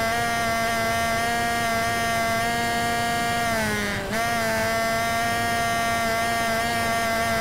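Small brushless electric motor (Turnigy 2835 2700 kV) and propeller of an EasyStar RC plane running steadily in flight, a high whine. About three and a half seconds in its pitch sags slightly, then jumps back up at about four seconds.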